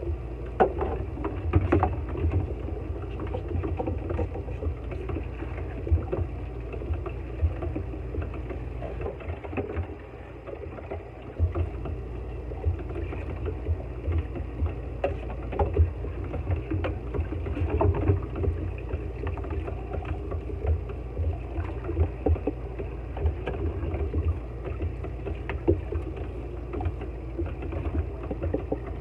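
Kitchen faucet running into the sink while plastic cups, a tumbler and a bowl are rinsed and scrubbed by hand, with frequent light knocks and clatters of the dishes against each other and the sink.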